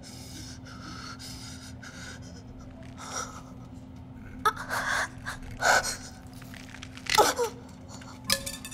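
A woman gasping and panting in pain, then letting out several short, loud screams, from an arrow stuck in her that she says has gone in to the bone. A steady low hum runs underneath.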